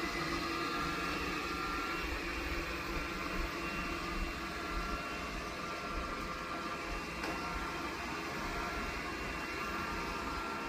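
Cuckoo Powerclone robot vacuum's all-in-one docking station running after the robot has docked, a steady motor and fan hum with several steady whining tones over it.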